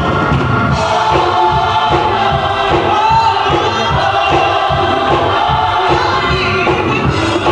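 Gospel choir singing, with a steady beat underneath.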